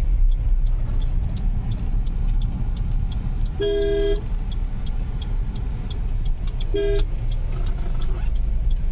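Steady road and engine noise inside the cabin of a Toyota Hyryder mild-hybrid SUV cruising on a highway at about 80 km/h. A car horn toots twice: a half-second toot about three and a half seconds in, and a shorter one near seven seconds.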